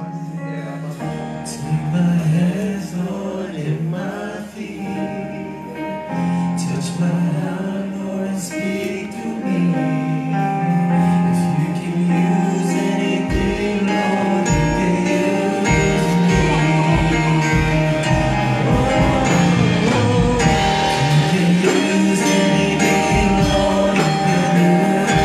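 Worship music with singing, held chords under a vocal line. Deep bass notes come in about halfway through.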